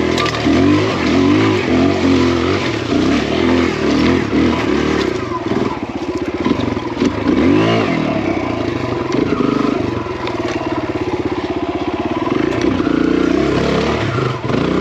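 Big-bore Kawasaki KLX170 dirt bike's single-cylinder four-stroke engine through a BBR aftermarket exhaust, revving up and down in short throttle bursts at low speed. It drops toward idle about eight seconds in as the bike stops to pivot, then revs again.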